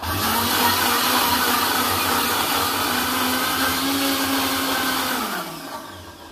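Mixer grinder motor running steadily, whipping egg whites and oil into mayonnaise in its jar. About five and a half seconds in it is switched off and winds down with a falling hum.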